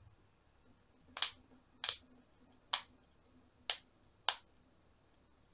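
Silicone bubbles of a pop-it fidget toy being pressed one by one: five sharp pops spaced roughly half a second to a second apart.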